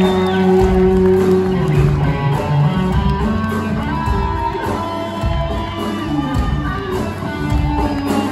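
Live rock band playing on electric guitar and bass, with held notes and changing chords, and some audience noise underneath.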